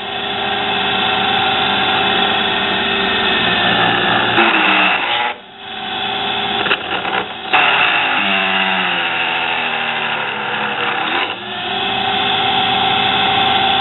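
Nano lathe's motor running as a drill press, driving a center drill bit into aluminum plate: a loud, noisy whine with cutting chatter. The pitch wavers as the bit is fed in, with a brief dip in level about five seconds in.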